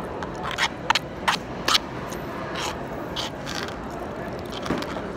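White plastic spoon scraping and clicking against a plastic takeout container: a run of short scrapes, the sharpest in the first two seconds, with a few fainter ones after.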